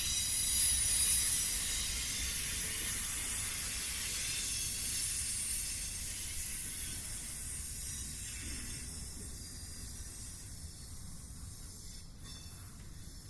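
Freight train's container cars rolling slowly past on the rails, a steady hiss over a low rumble that gradually fades.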